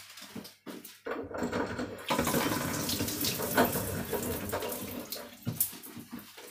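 Kitchen tap running water into a sink; it starts about a second in and stops shortly before the end.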